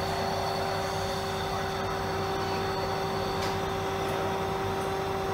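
CNC lathe running: a steady machine hum with a constant mid-pitched tone.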